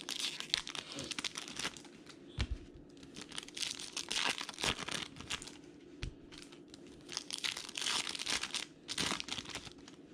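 Foil trading-card pack wrappers being torn open and crinkled by hand, an irregular crackling that comes in spurts, with a few soft knocks.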